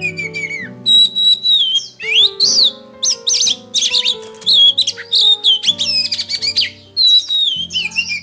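A songbird singing a loud, varied song of whistled phrases, with rising and falling slurs and fast chattering runs, over background music of held low notes.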